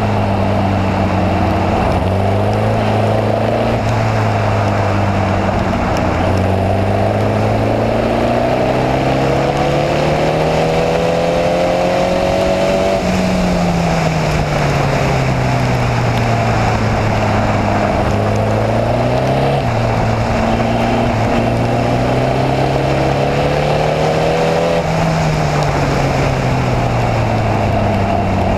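Air-cooled Volkswagen flat-four engine of a Formula Vee race car at racing speed, heard onboard. Its pitch climbs slowly through a long pull, falls away about halfway through, steps up and climbs again, then drops back near the end, over a steady rushing noise.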